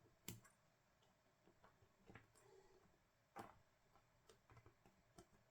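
Near silence with a few faint, scattered clicks and light taps, the sharpest about a third of a second in and another a little past three seconds.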